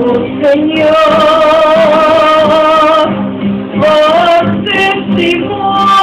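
A singer's voice amplified through a microphone, holding long notes over live music.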